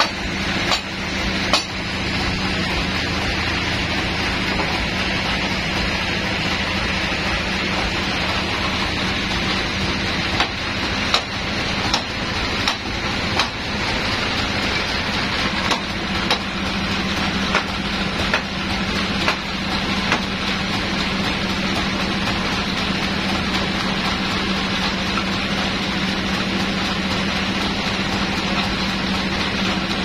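Band sawmill's motor running steadily with a constant hum, while a large log is shoved into place on the carriage. Sharp knocks of wood and metal come every second or so through the first two-thirds, then stop, leaving just the machine running.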